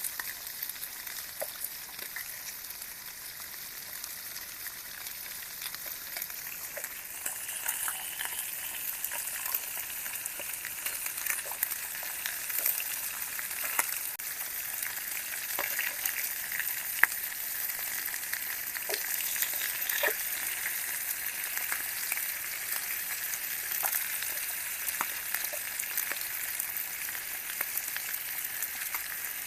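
Garlic sizzling and crackling in hot oil in a small pan, with scattered small pops; the sizzle grows fuller about seven seconds in.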